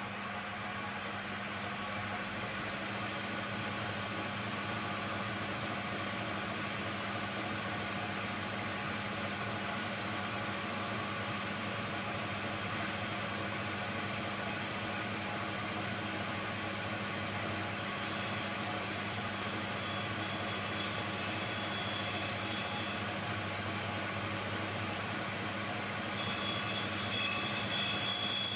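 Small single-speed homemade lathe running with a steady motor hum while a carbide tool cuts into a thick metal plate. A high-pitched squeal from the cut comes in about two-thirds of the way through and grows louder near the end.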